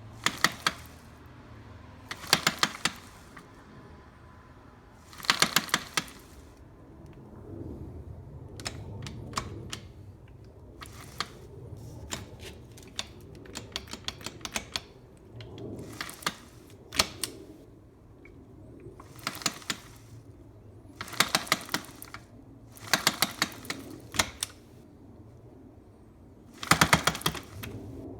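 Repeated bursts of rapid metallic clicking and clunking, about every two to three seconds, from a rebuilt 2009 Yamaha YZ250F engine and gearbox being rotated in neutral. This is the hard clunk the owner is trying to diagnose as a transmission fault.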